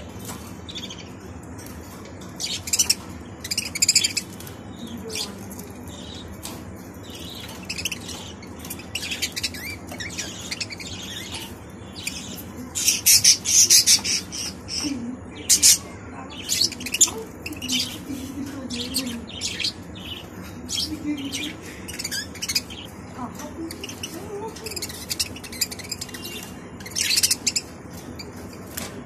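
Budgerigars chirping and chattering: short, high calls in irregular clusters, loudest and densest about halfway through.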